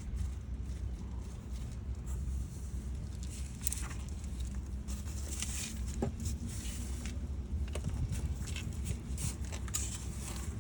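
Scattered light clicks and short scraping noises over a steady low rumble.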